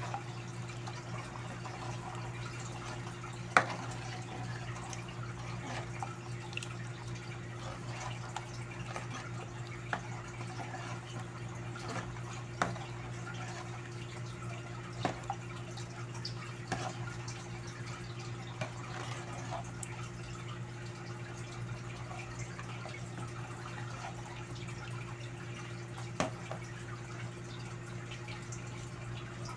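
Thick rice and coconut-milk porridge bubbling in a pot as it comes to a simmer, stirred with a metal slotted ladle. The ladle scrapes and knocks against the pot now and then, sharpest about three and a half seconds in and again near 12 and 26 seconds, over a steady low hum.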